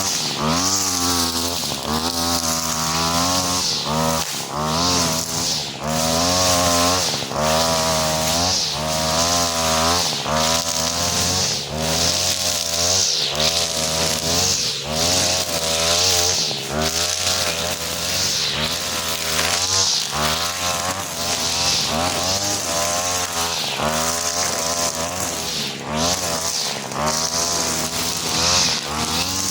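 43cc two-stroke brush cutter running with a four-strand 2.5 mm nylon trimmer line head, its engine pitch wavering up and down with frequent brief dips over a steady high whirring hiss.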